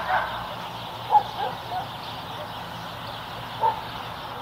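A dog barking a few times, short sharp barks with the loudest about a second in and another near the end, over a steady low background noise.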